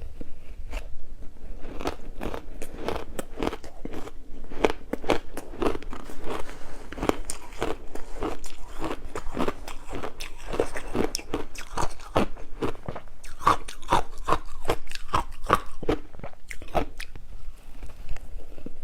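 Close-up crunching of shaved ice being bitten and chewed, in rapid irregular crunches several times a second.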